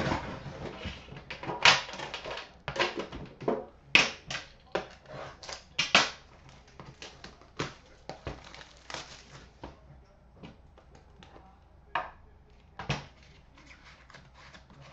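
Sharp clicks, knocks and clatter of a metal trading-card tin being handled and opened, heaviest in the first six seconds, then fewer, lighter taps as the card box inside is handled.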